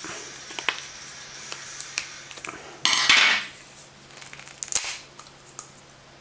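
Knife blade clicking and scraping against the plastic of an LED bulb as the diffuser dome is pried and twisted off its base, with one louder scrape lasting under a second about three seconds in, as the dome comes free of the sealant, followed by a few light plastic clicks.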